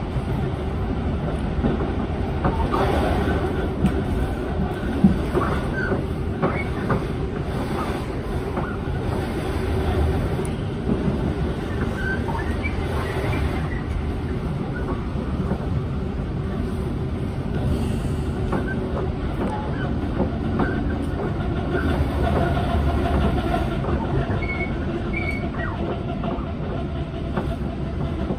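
Electric passenger train running, heard from inside the carriage: a steady rumble of wheels on rails, with a few sharp clicks and scattered brief high squeals from the wheels.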